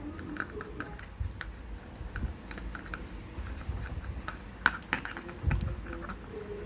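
Light clicks and taps of plastic and metal parts being handled and fitted together while an angle grinder is reassembled by hand, with a sharper click a little before 5 seconds in and a soft thump just after.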